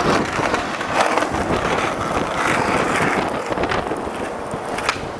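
Skateboard wheels rolling over concrete, a steady rumble with a couple of sharp clacks, about a second in and again near the end.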